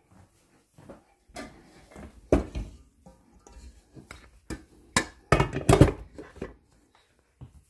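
Kitchen clatter: a mixing bowl and utensils knocked and set down as they are moved to the mixer. There are scattered knocks throughout, with a cluster of louder clunks about five to six seconds in.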